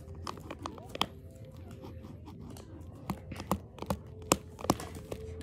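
Pen drawing short strokes on paper: a string of light, irregular taps and scratches as the tip hits the paper.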